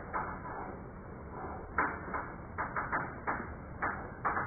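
Chalk writing on a blackboard: a string of sharp taps and short strokes, sparse at first, then coming in quick succession from about two seconds in.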